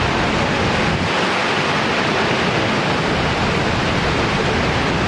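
Niagara Falls' Horseshoe Falls pouring over its brink: a loud, steady, unbroken rush of falling water.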